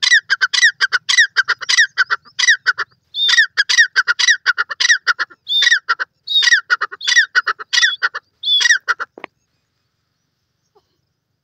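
Grey francolin (teetar) calling loudly: a rapid run of sharp repeated notes, about four a second, with longer falling notes mixed in, stopping suddenly about nine seconds in.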